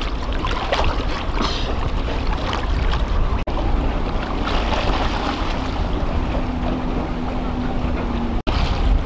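Wind buffeting the microphone in a steady low rumble, over water slapping and splashing as a swimmer strokes away from the boat.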